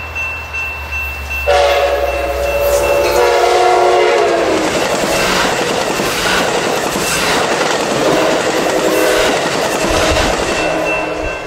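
Amtrak Pacific Surfliner diesel locomotive sounding its horn as it passes close by. The horn starts loud about a second and a half in and drops in pitch as the locomotive goes past. The bilevel passenger cars then clatter and rush past on the rails, and the horn sounds again near the end.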